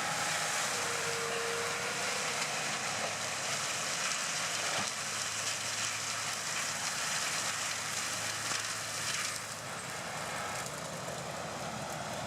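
AHWI M650 forestry mulcher's rotor teeth grinding a tree stump into chips: a steady, noisy grinding over a low engine hum.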